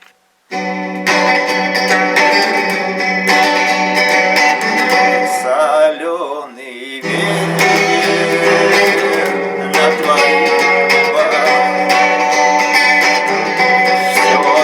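Instrumental intro of a cover song, guitar-led music starting about half a second in over a steady low bass note, with a brief wavering, quieter passage about halfway through.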